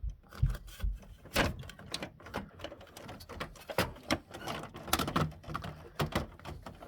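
Plastic toner cartridge being worked back into a Canon MF3010 laser printer: a run of irregular knocks, clicks and scrapes of plastic on plastic as it is moved around to seat.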